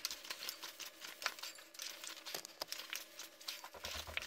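Faint, irregular clicks and taps as a bicycle tyre is inflated with a floor pump.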